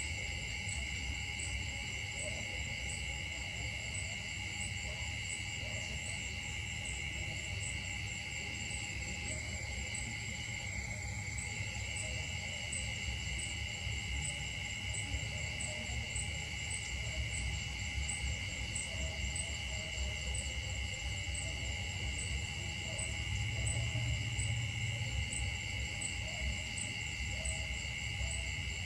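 Steady chorus of insects: several high tones held without a break, one of them pulsing evenly. A low rumble runs underneath and swells briefly near the end.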